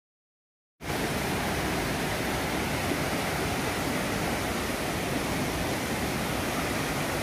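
Rushing mountain stream, a steady rush of white water over rocks, cutting in suddenly just under a second in after silence.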